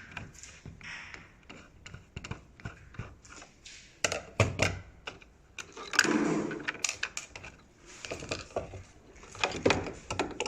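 Hands and a screwdriver working loose the door switch at the back of a Defy top-loader washing machine: scattered clicks, knocks and rattles of small plastic and metal parts, with a louder scraping rattle about six seconds in.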